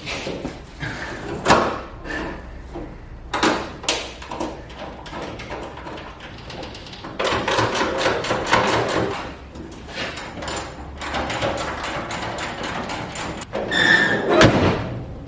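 Irregular knocks, clicks and clatter of tools and parts being handled, with a brief high tone near the end.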